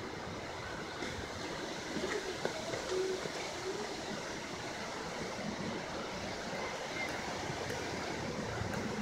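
Steady rushing storm noise outdoors, an even hiss of wind and rain with a few faint ticks scattered through it.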